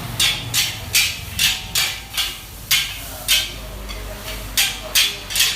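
Restaurant-kitchen utensil knocking hard and repeatedly, about a dozen sharp strikes at an uneven pace with a short pause in the middle, over a steady low hum.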